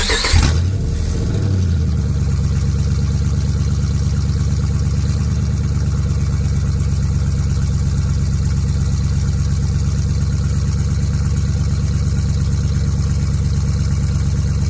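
A Dodge truck's Hemi V8 catches, flares briefly and settles into a steady idle, running with an open exhaust: the old system is removed and no muffler is fitted.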